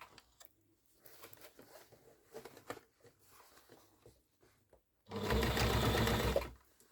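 Toyota electric sewing machine stitching through a rucksack strap, run in one steady burst of about a second and a half near the end. Before it there are only faint small handling clicks.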